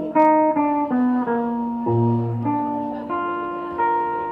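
Live band music: a picked guitar plays a melody of single notes that ring on, with a low bass note about halfway through. It ends on a held note that slowly dies away.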